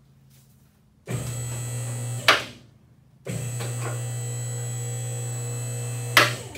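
Electric hoist motor running in two pulls, one of about a second and one of about three seconds, each ending in a sharp clunk as it stops, lifting a truck cab off its frame.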